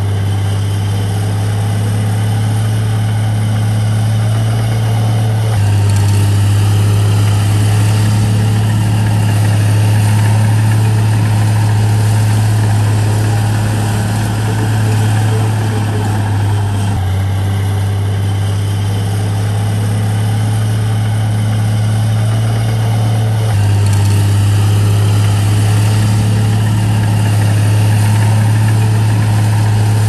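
Diesel engine of a heavy earthmoving machine running steadily, its low note shifting a few times as the load changes.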